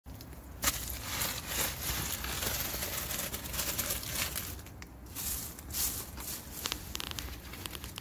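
Acorn shells cracking and crunching under a heavy quern stone pressed and rubbed over them on concrete: a dense crackle of breaking shells that thins to scattered clicks in the last few seconds.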